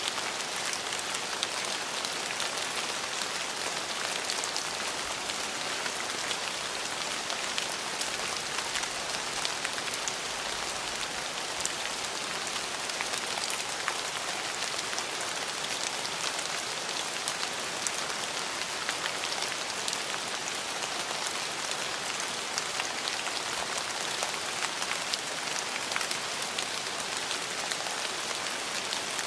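Steady rain falling, a dense even hiss of drops with many small distinct raindrop ticks.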